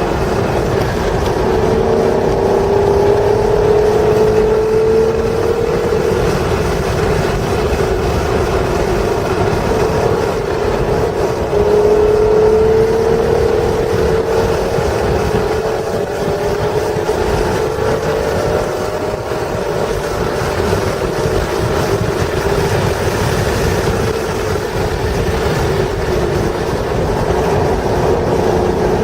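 1996 Acura NSX's stock 3.0-litre V6 running hard at track speed. Its engine note climbs steadily several times and drops back between the climbs, over constant wind and road noise.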